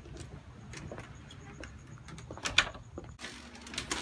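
Quiet footsteps and scattered small clicks as people walk through a house doorway, with a short cluster of louder sharp taps about two and a half seconds in.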